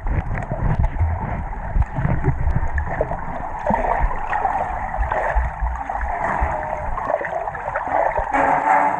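Muffled swimming-pool water noise heard underwater through a GoPro's waterproof case: sloshing water with scattered knocks from people moving about in the pool.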